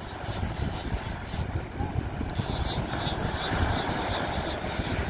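Wind buffeting the microphone in an uneven low rumble, over the steady wash of surf breaking on the beach.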